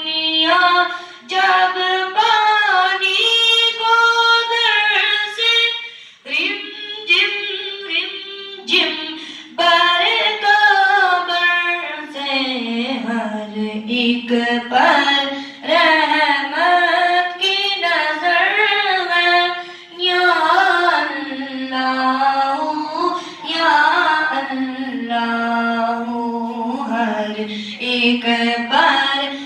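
A boy singing a devotional kalam unaccompanied into a microphone, in a high voice with long, gliding sung phrases and a brief breath pause about six seconds in.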